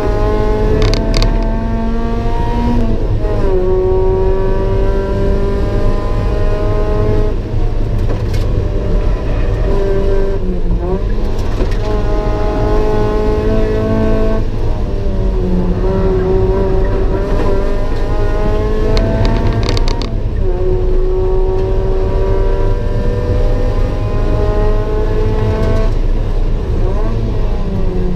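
Mazda MX5 NA 1.8 L four-cylinder engine at full throttle on a track lap, heard from inside the cabin. Its pitch climbs steadily under acceleration, then drops back sharply four or five times at gear changes and corner entries, over road and wind noise.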